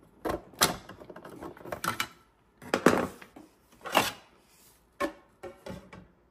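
Hard plastic knocks and clatters as an empty filament spool and a printed spool guard are worked loose and lifted out of a Bambu Lab AMS unit. There are several separate knocks, the loudest about three and four seconds in, with a few lighter taps near the end.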